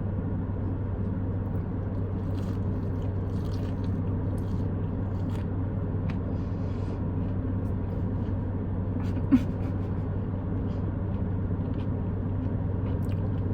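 Steady low hum of an idling car, heard inside the cabin, with faint chewing and mouth clicks from eating a fried chicken finger, and one short, sharper sound about nine seconds in.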